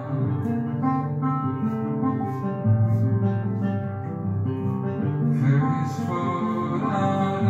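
Background music led by guitar, with notes changing steadily.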